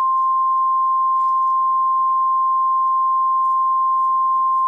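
Emergency Alert System warning tone: one steady, unbroken high-pitched tone, the alarm that comes before a tornado warning message.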